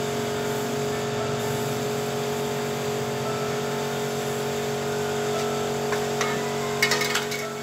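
A steady mechanical hum of several fixed pitches, like an engine or electric motor running at an even speed, with a few sharp clicks and knocks about seven seconds in.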